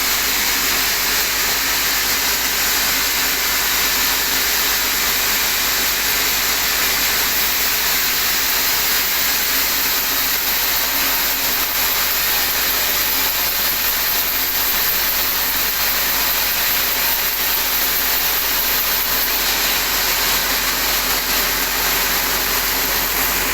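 Sawmill saw running steadily through a teak log, a continuous loud hissing machine noise with no pauses.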